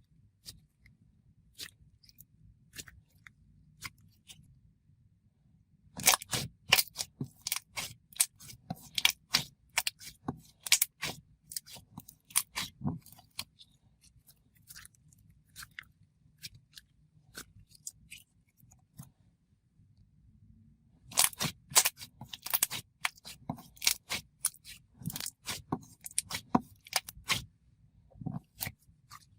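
Slime being squished and poked by hand, making quick wet pops and clicks in two long busy runs, with only faint scattered clicks between them.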